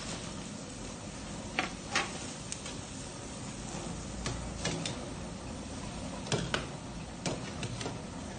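A metal ladle clanking and scraping against a steel wok as vegetables are stir-fried, a dozen or so sharp irregular clacks over a steady frying hiss.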